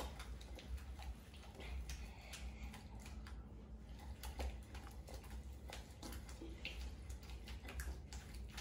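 Pestle grinding a thick paste of almonds and spices with milk in a mortar, making faint, irregular scraping and knocking.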